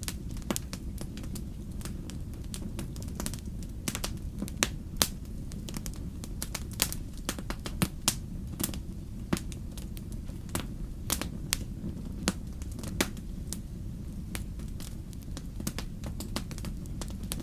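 Wood campfire burning: a low steady rumble of flames with irregular sharp crackles and pops, a few of them louder snaps.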